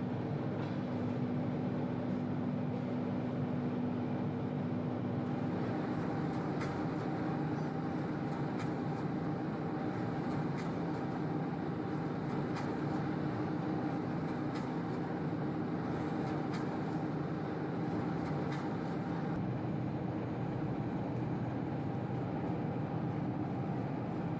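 Steady hum of workshop machinery running, with a low steady tone that fades about a fifth of the way in, and scattered light clicks through the middle.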